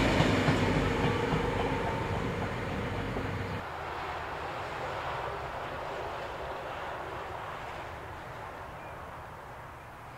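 Train carriages rolling away on the rails, their rumble fading. An abrupt cut about three and a half seconds in leaves only a faint steady hiss that slowly dies away.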